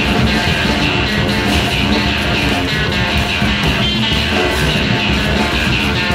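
Free improvisation for drum kit and electric guitar: a dense, fast barrage of drums and cymbals, with guitar notes ringing over it.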